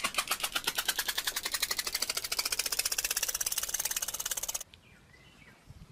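A rapid, even rattle of many sharp pulses a second, stopping abruptly about four and a half seconds in.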